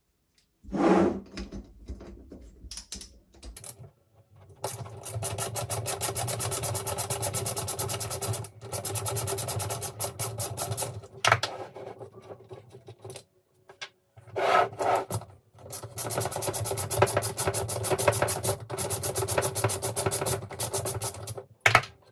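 Ratchet wrench clicking rapidly in two long runs while backing fasteners out of a metal throttle body, with a few knocks of parts and tools set down on the bench.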